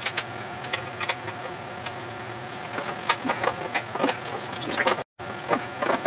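Scattered light clicks and taps of metal parts being handled on a lawn tractor's sheet-metal body, over a steady low hum.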